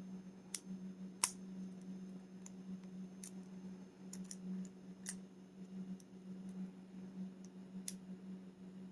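Small sharp clicks of a lock pick and tension wrench working the pin tumblers of a rim cylinder lock, scattered irregularly with the loudest about a second in, over a steady low hum.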